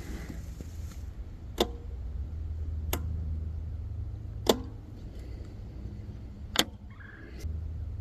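Four sharp clicks of the e-bike's brake levers being squeezed and released to work the brake light, one every one and a half to two seconds, over a low steady rumble.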